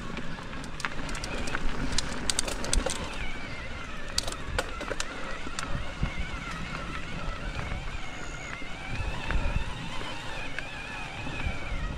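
Mountain bike riding a dirt trail: rumble of tyres and wind on the microphone, with a run of sharp clicks and rattles in the first few seconds and a wavering high whine from about three seconds in.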